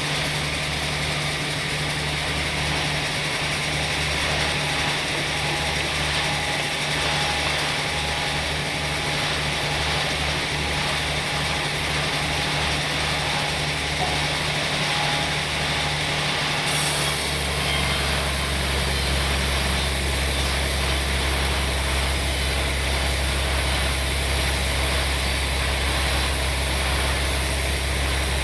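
Sawmill machinery running steadily with a low, even hum. About two-thirds of the way in its sound changes abruptly to a deeper, fuller drone.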